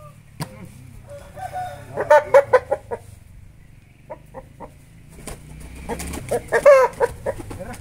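Rooster calling in two loud bursts of quick, rough notes, about two seconds in and again near the end, the second the louder.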